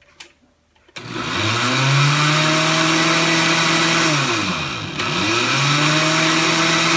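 Countertop blender switching on about a second in, spinning up and running steadily as it blends water with greens powder. Its motor slows almost to a stop between four and five seconds in, then spins up and runs again.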